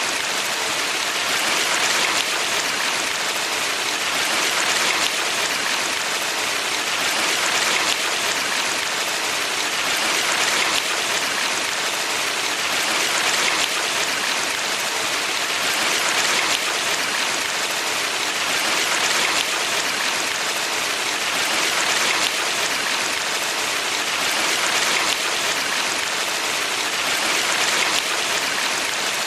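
Mountain valley stream rushing steadily, a dense water hiss that swells and eases gently every few seconds.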